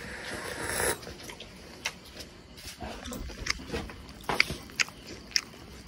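Chewing and biting into food close to the microphone, with scattered small sharp clicks and taps.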